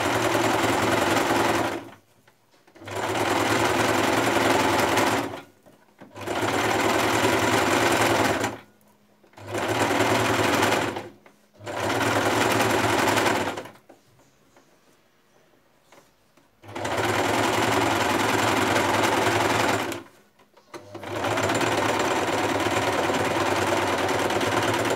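Electric domestic sewing machine stitching elastic onto the edge of a fabric cover, running in seven short runs of a few seconds each with brief stops between them and a longer pause just past the middle.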